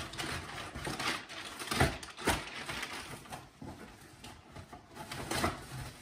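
Cardboard box and packing material being handled: irregular rustling, scraping and small knocks, with two louder knocks about two seconds in.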